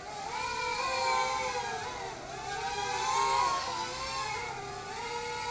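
WLToys Q242G micro quadcopter in flight: its motors and propellers whine at several close pitches that rise and fall together as the throttle changes, loudest about a second in and again around three seconds in.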